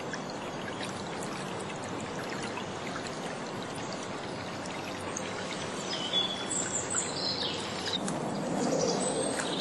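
Steady rush and hiss of water spraying up as a wakeboard and its tow rope cut through floodwater. Bird chirps join in from about six seconds in.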